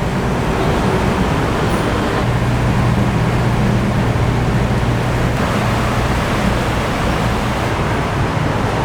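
Steady, loud rumbling noise with a constant low hum underneath, unbroken and even.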